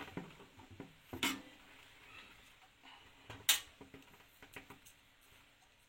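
Light metallic clicks and clinks of small screws and a screwdriver while a motherboard is screwed to the case's standoffs, with two sharper clicks about a second in and a little past halfway.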